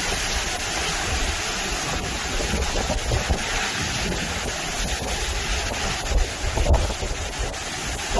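Hurricane wind blowing hard and buffeting the microphone: a steady rush with low rumbling gusts, loudest a little past the middle.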